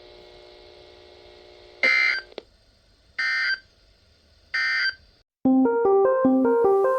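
Three short, loud digital data bursts of the EAS (SAME) end-of-message code, each a fraction of a second, about a second and a quarter apart, following a faint steady hum. About five and a half seconds in, keyboard music with a stepping run of notes begins.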